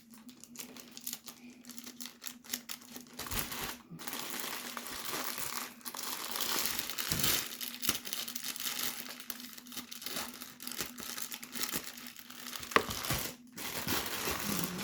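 Package wrapping being opened by hand: continuous crinkling and tearing, with a sharp snap about two seconds before the end.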